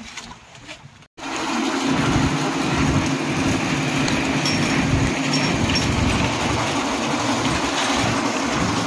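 Engine of a concrete mixer-and-hoist slab-casting machine running steadily with a constant hum, starting abruptly about a second in.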